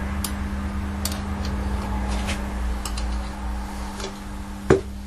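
Light metallic clicks and ticks, irregularly spaced, as a steel camshaft from an Austin Metro automatic is fed by hand into an A-series engine block, its lobes catching on the cam bearings, with one louder clunk near the end. A steady low hum runs underneath.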